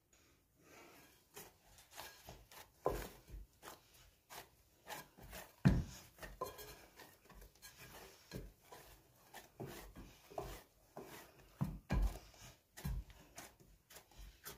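Hands kneading soft yeast dough in a bowl: irregular squishing and rubbing as the dough is pushed and folded, with a few louder dull thumps.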